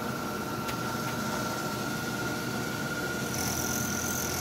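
Milling machine spindle running at high speed with a steady high whine, as a small end mill is fed down into a sprocket to cut a keyway. A higher hiss joins about three seconds in.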